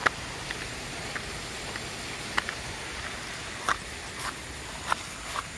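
Light, irregular footstep taps as a person and a dog on a leash walk from pavement onto grass, over a steady faint hiss.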